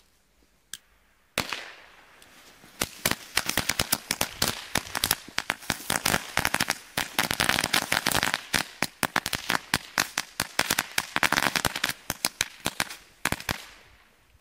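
A mat of Lady Cracker 700 string firecrackers going off: a rapid, irregular run of many sharp bangs that begins about three seconds in, lasts about ten seconds and tails off near the end.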